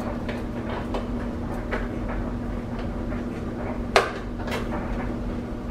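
A steady low hum under scattered light clicks and knocks of kitchen handling, with one sharp click about four seconds in.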